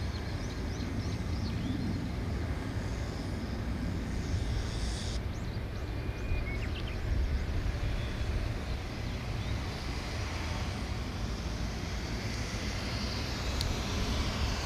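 Steady low outdoor rumble with no distinct source, with a few faint high chirps in the first seconds and a single sharp click late on.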